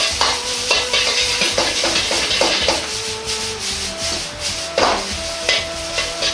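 Metal ladle scraping and tapping against a wok while stir-frying rice: rapid, irregular scrapes and knocks throughout.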